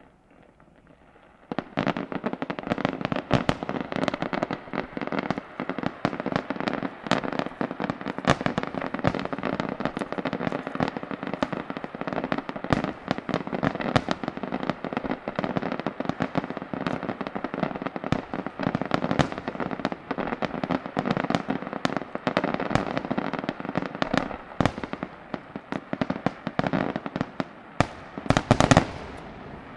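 A fireworks display in a dense barrage: aerial shells bursting in quick, overlapping bangs that start about a second and a half in and continue without a break. The loudest flurry of bangs comes just before the end, then the barrage stops.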